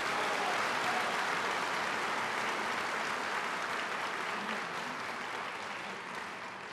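Audience in a hall applauding: a steady round of clapping that begins at full strength and slowly dies away toward the end.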